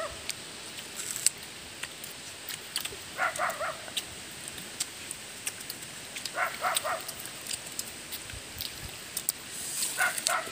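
Short bursts of three or four quick yelping calls from an animal, coming about every three seconds, over scattered sharp clicks.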